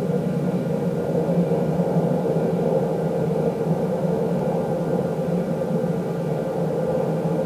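Steady ambient drone music: several low tones held unchanging throughout, with no beat.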